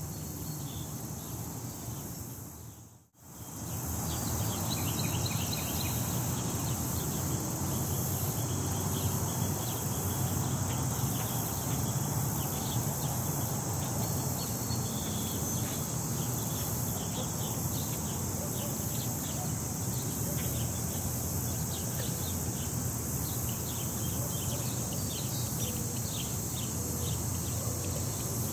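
Outdoor ambience: wind rumbling on the microphone under a steady high hiss, with many faint quick chirps scattered throughout. The sound drops out briefly about three seconds in.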